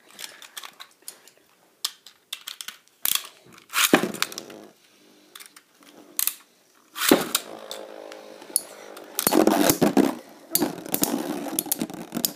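Metal-wheeled Beyblade spinning tops clattering around a plastic stadium, with repeated sharp clacks as they strike each other and the bowl wall. The clashing grows denser and louder about halfway through.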